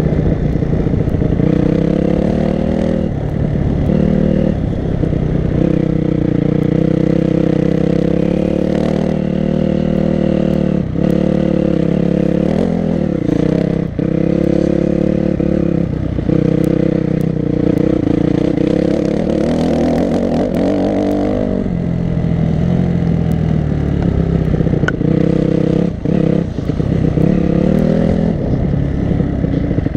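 Enduro dirt bike's engine running hard under throttle, heard from on the bike, its pitch holding for long pulls and dipping briefly half a dozen times. Sharp knocks from the bike over the bumpy track come through now and then.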